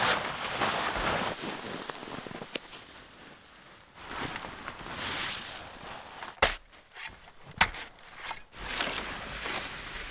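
Rustling, crunching handling noise with a few sharp cracks, the two loudest a bit over a second apart past the middle.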